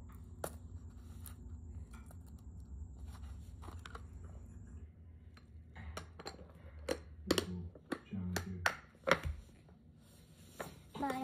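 Scattered sharp clicks and taps over a low steady hum, with a faint high whine; the hum and whine stop about five seconds in, and the clicks come more often after that.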